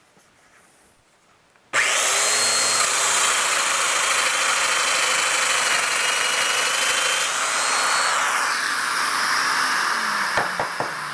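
Festool Domino joiner and its linked dust extractor switch on together about two seconds in: a steady rushing run with a high cutter whine that dips slightly while it cuts into the wood. About eight seconds in the joiner is switched off and its whine winds down while the extractor's rush carries on, with a few light knocks near the end.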